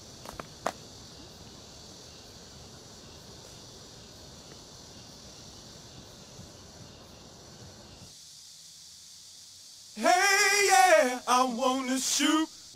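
A faint steady hiss with a couple of small clicks, then, about ten seconds in, a loud wordless voice singing a wavering line with heavy vibrato in a few short phrases.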